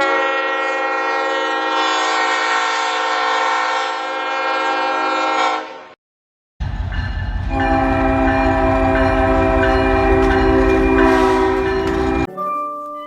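Two long, held locomotive horn blasts, each about six seconds, with a brief cut to silence between them. The second sounds over a low rumble. Music comes in near the end.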